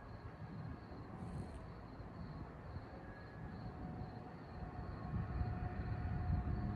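Low rumble of an approaching rail vehicle on the line, building in loudness about five seconds in.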